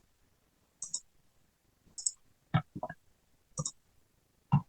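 Computer mouse clicking: sharp press-and-release pairs about once a second, mixed with a few duller taps.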